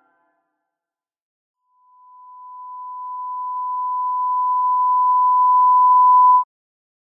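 Broadcast test tone, the reference tone that goes with colour bars: a single pure steady note that fades in after about two seconds of silence, grows louder, and cuts off suddenly near the end.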